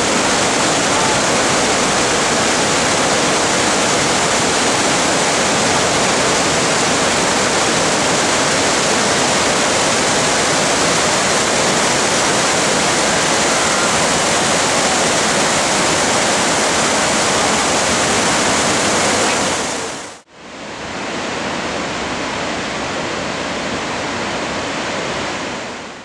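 Låtefoss waterfall and the whitewater river below it rushing steadily and loudly. About twenty seconds in the sound fades out briefly, and a second, slightly quieter rush of falling water follows.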